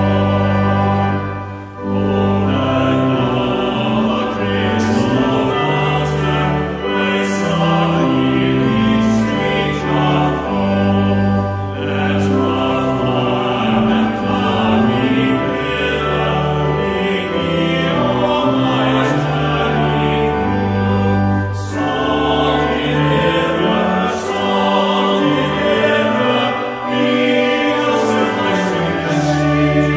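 A men's vocal ensemble singing a hymn in several-part harmony, with sustained chords that change from phrase to phrase.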